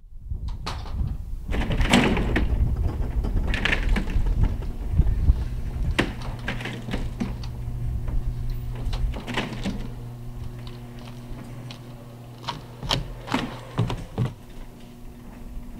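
Garage door rising on its opener, a steady low motor hum with scattered clicks and knocks. The hum comes in about six seconds in and fades after about twelve seconds.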